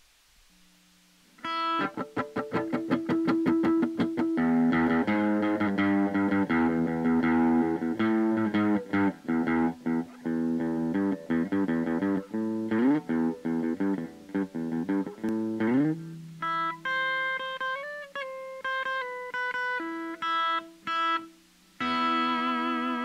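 Electric guitar played through a solid-state amplifier. After about a second and a half of quiet comes a fast run of picked notes, which gives way after about 16 seconds to slower, held notes and a final sustained chord.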